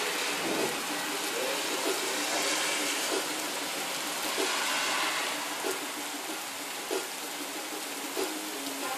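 Steady rain falling, a dense even hiss, with scattered louder drops ticking on a nearby surface.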